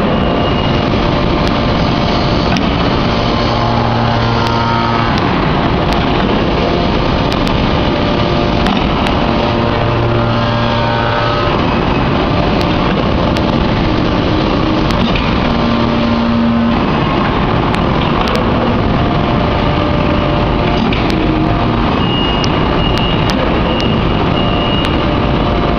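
Anyang open-die hydraulic forging press working hot steel: loud, steady machinery noise with hums that come and go and occasional light clicks.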